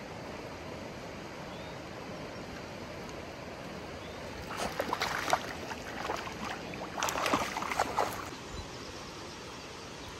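Steady rush of running water, with two short bursts of crackling noise, one about four and a half seconds in and one about seven seconds in.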